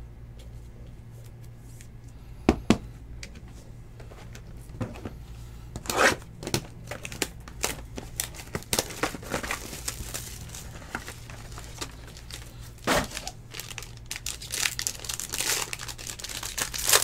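Two sharp clicks about two and a half seconds in, then a trading-card box being handled and a foil card pack torn open and crinkled, densest near the end.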